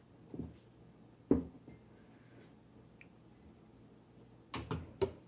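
Knocks and clinks of a ceramic bowl and a small glass dish being picked up and moved on a tabletop. There is one sharp knock about a second in, then a few quick knocks and clinks close together near the end.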